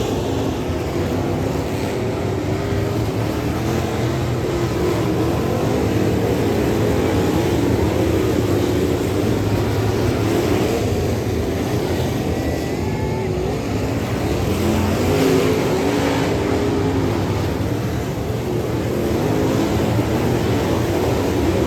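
Dirt Late Model race car V8 engines running hard, their pitch wavering up and down without a break.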